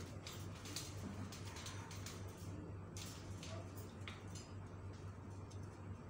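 Scattered light clicks and ticks as Alexandrine parakeets climb about their wire cage, over a steady low hum.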